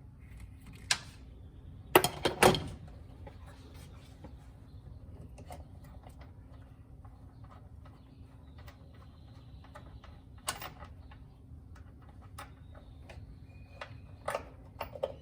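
Scattered sharp clicks and knocks of a socket ratchet and metal hardware being worked on a Jeep hood clamp bolt. The loudest is a quick cluster of clicks about two seconds in, with a few more near the end.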